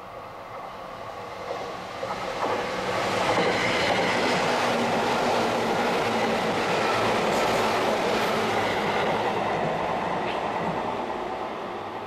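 Seibu 10000 series 'New Red Arrow' limited-express electric train approaching and running past close by, its wheels rumbling on the rails. The sound builds over the first few seconds, stays loud through the middle, and fades as the train draws away.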